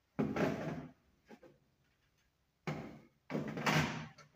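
Plastic socket faceplate being slid and pressed against its back box, giving short scraping, rubbing noises: a loud one just after the start, a faint one, then two more close together near the end.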